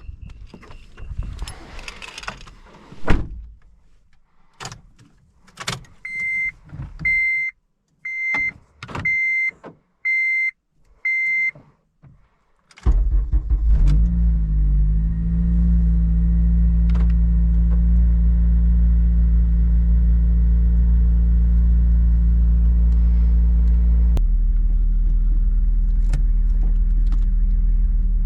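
Honda Civic Si start-up: clicks and thumps of doors and keys, then a warning chime beeping six times about once a second. About 13 seconds in the engine starts, its pitch wavers briefly as it settles, and it idles steadily, the idle sound stepping lower near the end.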